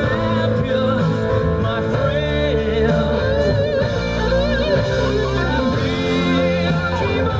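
Rock music playing: a voice singing with vibrato over guitar and a steady bass line.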